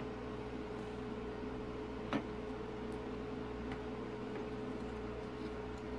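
A steady hum with an even hiss, and one light click about two seconds in, with a few fainter ticks, as the speedometer's circuit board and housing are handled.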